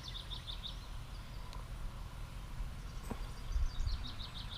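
A songbird singing a quick series of short repeated high notes, once at the start and again near the end, over a low rumble that swells briefly about three and a half seconds in.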